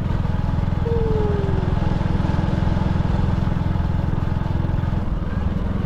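Motorcycle engine running steadily while riding, with road and wind noise, heard through a helmet-mounted GoPro's built-in microphone.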